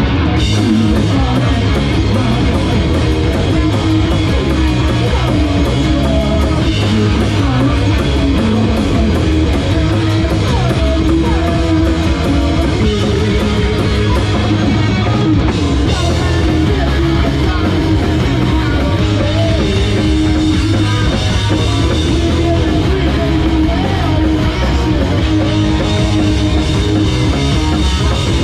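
A live rock band playing loud, with electric guitars over a drum kit.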